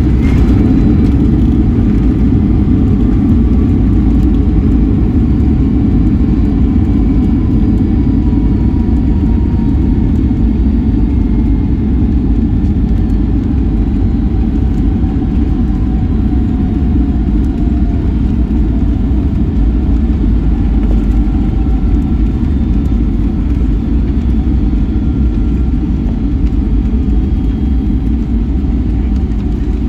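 Loud low rumble inside the cabin of a Boeing 757-300 rolling out on the runway just after touchdown. A faint jet-engine whine falls slowly in pitch as the engines spool down, and the roar eases gradually as the aircraft slows.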